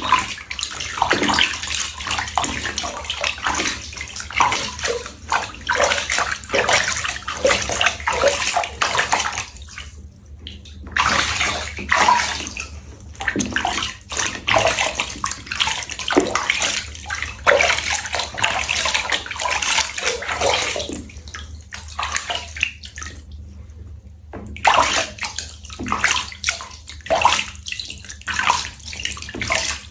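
Water splashing and sloshing in irregular bursts, with short pauses about ten seconds in and again around two-thirds of the way through.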